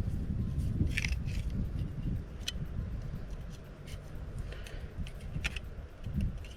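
Fishing knife scraping and cutting at a coconut's shell, with a few sharp clicks.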